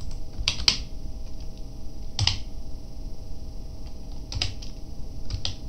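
Computer keyboard keys clicking: about six separate keystrokes, unevenly spaced, over a low steady room hum.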